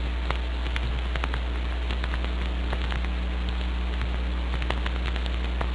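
Background noise of an old analog soundtrack recording: a steady low hum under an even hiss, dotted with scattered small crackles and clicks.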